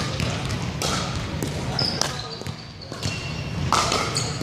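Pickleball rally: paddles striking the hollow plastic ball with sharp pocks roughly a second apart, ringing in a large gym, with sneakers squeaking on the wooden court floor.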